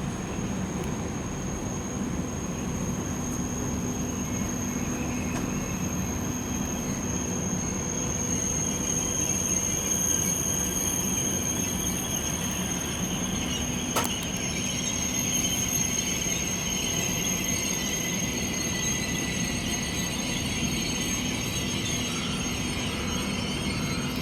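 A train running slowly through a station, with a steady low hum and a steady high-pitched whine from the wheels on the rails. There is one sharp click a little past halfway, after which a harsher screeching noise grows.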